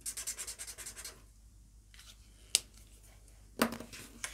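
Silver felt-tip metallic marker scribbling a swatch on black card: about a second of quick, rhythmic scratching strokes. A sharp click follows, then a few knocks and taps as the pen is set down on the table.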